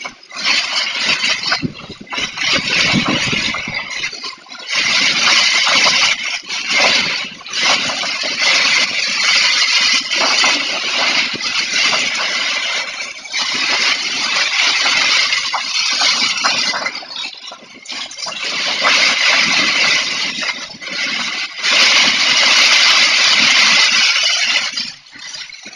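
Heavy rain and gusting wind in a storm, a dense hiss that surges and eases every few seconds.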